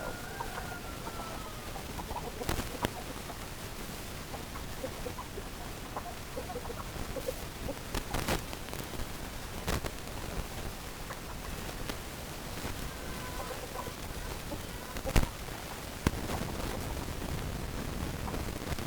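Chickens clucking and calling softly over a steady background hiss, with a few drawn-out calls and scattered short clucks. Several sharp knocks break in, the loudest about fifteen seconds in.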